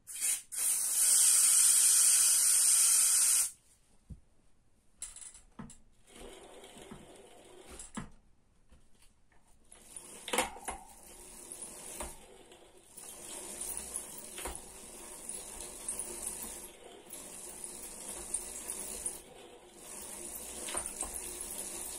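Aerosol can of silicone lubricant sprayed into a worn bicycle freewheel ratchet in one loud, steady burst of about three seconds. After that comes a much fainter hiss with scattered small clicks, stopping briefly now and then.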